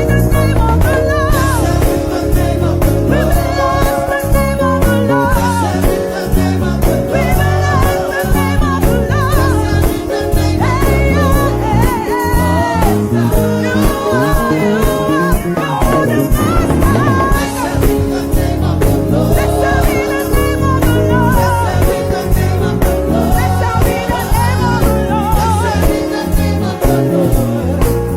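Gospel praise music: a band plays a sustained chordal backing with a driving low-end beat while voices sing wordless vocal runs.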